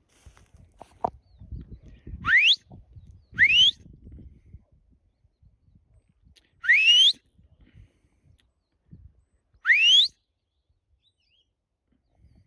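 A person whistling to a working Brittany spaniel: four short, sharp whistles, each rising steeply in pitch, the first two close together and the others a few seconds apart, as signals to the dog. Low rumble of wind or handling underneath.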